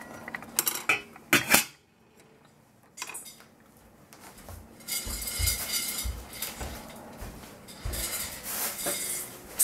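Stainless-steel saucepan and jug clinking in the first second and a half, then a single clink about three seconds in as the metal lid is set on the pot.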